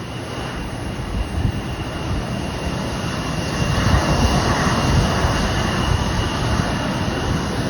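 Twin turbofan engines of an Embraer 175 regional jet running as it turns on the ground to line up for take-off: a broad rumbling roar with a steady high whine, growing louder about halfway through.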